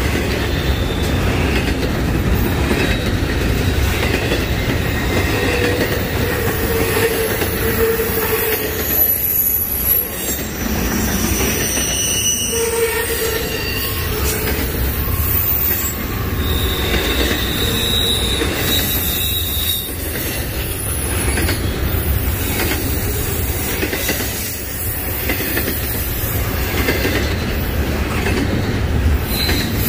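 Double-stack intermodal freight cars rolling past at close range: a steady, loud rumble of steel wheels on rail. Brief high-pitched wheel squeals come and go over it.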